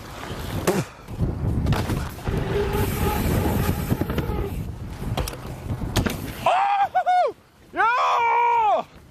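A rumbling outdoor noise with scattered knocks as the mountain bike rolls up a wooden kicker ramp. Then, about six and a half seconds in, a rider gives two long triumphant yells, the second louder and longer, after landing in the airbag.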